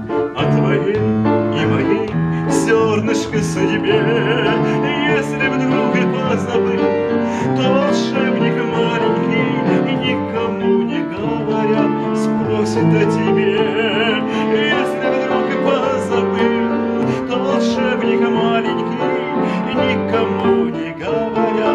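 Upright piano played in a lively song accompaniment with chords and a melody. A man's singing voice with vibrato joins over parts of it.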